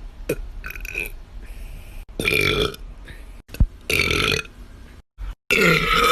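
A young woman belching loudly, three big burps about two, four and five and a half seconds in, with smaller sounds before them. Each is cut off abruptly where one clip ends and the next begins.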